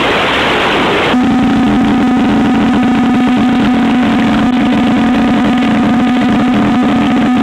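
Playback of a recorded ATOC low-frequency ocean acoustic tomography signal: about a second of hiss, then a steady, slightly pulsing hum with fainter higher tones above it.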